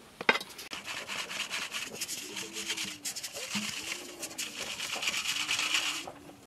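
Flour being sifted through a metal hand sieve shaken over a metal bowl: a rapid, rhythmic rasping of the mesh and rim. It starts with a sharp knock and stops just before the end.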